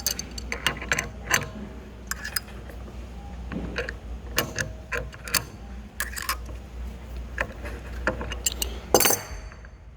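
Crescent wrench clicking and clanking on a crank puller as it is turned to draw the crank arm off a spin bike's crank spindle: irregular metallic clicks, with a louder clank about nine seconds in.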